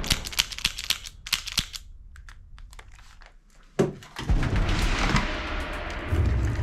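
Hard plastic toy guns clicking and clattering as they are handled in a box: a quick run of sharp clicks and taps, then a single louder knock just before four seconds in.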